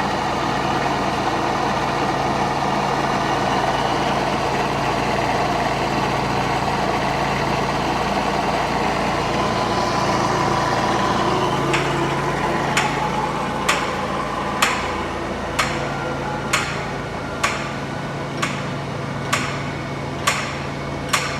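Pratt and Whitney thread milling machine running under power with a steady mechanical hum. About halfway through, a sharp click starts repeating about once a second, around ten times in all.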